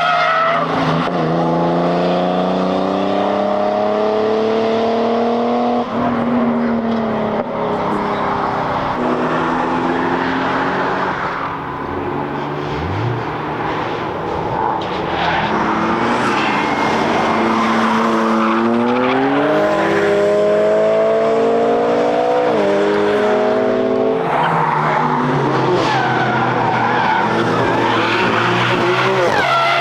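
Cars driven hard through a corner: engines revving up and falling away with several gear changes, over tyre squeal.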